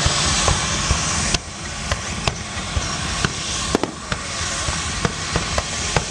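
Aerial fireworks display: a string of sharp bangs from shells launching and bursting, roughly one every half second. A dense crackling hiss under the bangs drops away a little over a second in.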